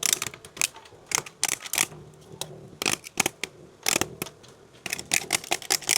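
Knife cutting and scraping at the plastic housing of an LED emergency light to clean out a knockout hole, giving irregular sharp clicks and short scrapes.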